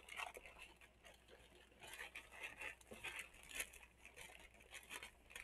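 Faint rustling and crinkling of a plastic poly mailer bag being handled and opened by hand, in scattered soft bursts.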